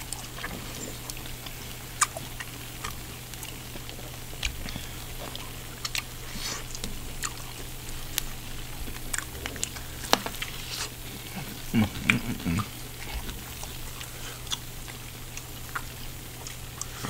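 Close-up chewing and wet mouth clicks of people eating cheese-covered fried chicken, with scattered sharp clicks throughout and a brief hummed "mm" about twelve seconds in.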